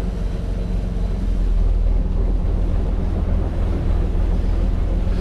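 Boat engine running steadily with a low drone, with wind and water noise over it.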